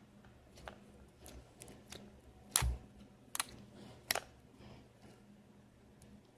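Homemade slime being squeezed and poked by hand, giving sporadic small clicks and pops, the loudest with a dull thump about two and a half seconds in and two more sharp clicks over the next second and a half.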